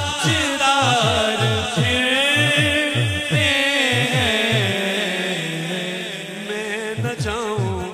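Male voices singing a naat through microphones, with long ornamented notes that waver in pitch. Under the first part a quick low thumping beat runs, and it mostly drops out about five seconds in.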